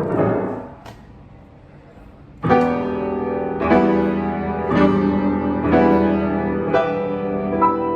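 Yamaha C7 grand piano being played: a passage rings away within the first second, a short lull follows, then full chords are struck about once a second, each left to ring.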